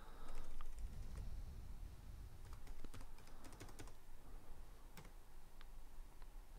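Typing on a computer keyboard: scattered key clicks, with a quick run of keystrokes around the middle.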